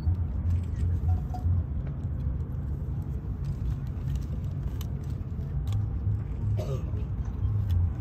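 A large wooden structure burning, heard as a low, uneven rumble with a few scattered sharp crackles.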